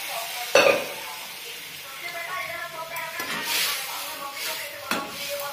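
Steel kadai clanking as it is moved on the gas stove, with a sharp knock about half a second in and a lighter one near the end, over a faint sizzle of chana dal cooking in the pan.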